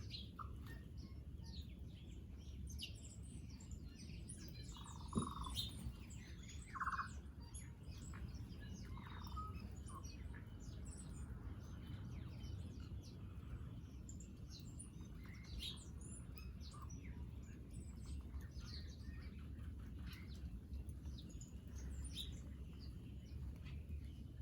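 Small birds chirping and twittering, with many short high chirps overlapping throughout. Two louder, lower calls come about five and seven seconds in. A steady low rumble runs underneath.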